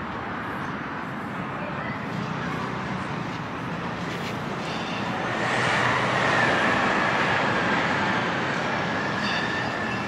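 A single-decker bus drives past amid street traffic. Its noise swells about halfway through, and a steady high whine joins it as it goes by.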